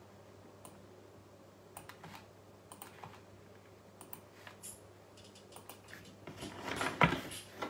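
Scattered light taps and clicks of fingers working a smartphone and its desk surface, getting busier near the end.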